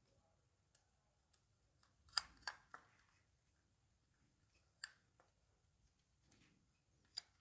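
Near silence broken by a few faint clicks and taps, three close together about two seconds in, then single ones near five and seven seconds: a plastic lamp holder and a small screwdriver being handled as a wire is fastened to the holder's terminal screw.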